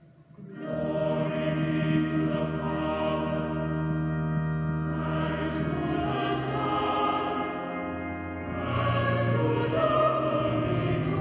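Voices singing a slow chant in long held notes, in phrases, the first beginning just under a second in.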